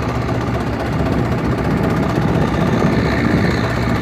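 Vintage farm tractor engine running steadily under load as it pulls a plough through the field, a continuous low hum.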